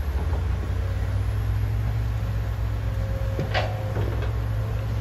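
Diesel engines of excavators and dump trucks running with a steady low rumble, with one brief sharp knock about three and a half seconds in.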